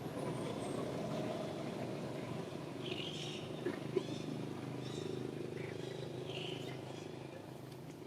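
A motor running steadily with a low even hum, with a few short high chirps now and then and a single sharp click about four seconds in.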